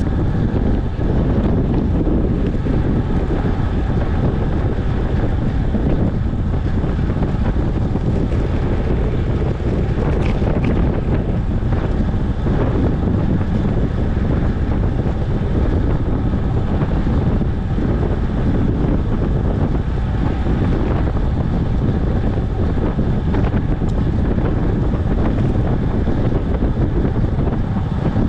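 Steady wind noise buffeting the microphone of a camera riding along on a moving road bike.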